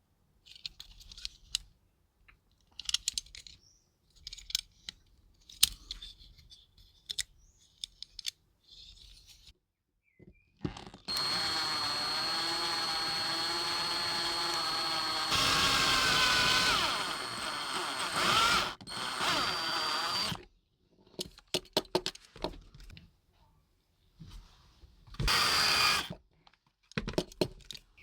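Light clicks and taps of small parts being handled, then an electric drill runs steadily for about nine seconds, speeding up and getting louder partway through, with its pitch wavering under load. Near the end the drill runs again in a short burst of about a second.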